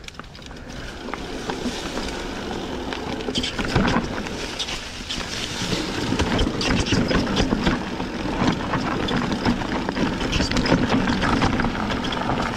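Mountain bike descending a dry, loose trail: tyres crunching over dirt and stones while the bike rattles and knocks over bumps, with wind rumbling on the microphone. It grows louder over the first two seconds.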